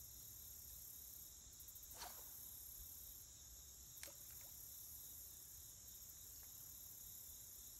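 Faint steady chorus of insects. A short falling note comes about two seconds in, and a brief faint click about two seconds later.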